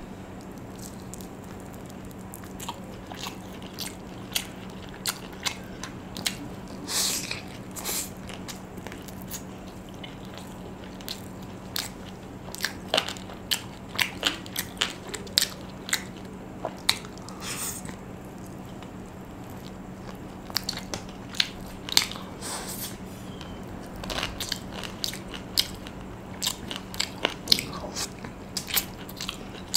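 Close-up eating of Korean fried chicken: biting and chewing, with many short sharp crunches and mouth clicks coming in clusters. A steady low hum runs underneath.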